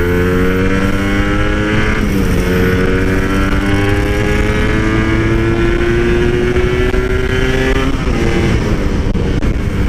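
Two-stroke motorcycle engine pulling under throttle on the move, its pitch climbing steadily. It drops sharply at a gear change about two seconds in, climbs slowly through the next gear, and drops again at another shift near the end.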